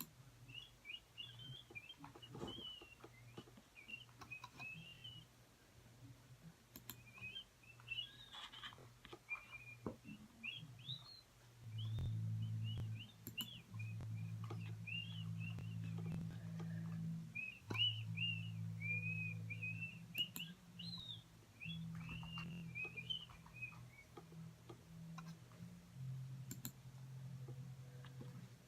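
A bird chirping and twittering in quick runs of short, high sliding notes. A steady low hum comes in about twelve seconds in, with faint scattered clicks throughout.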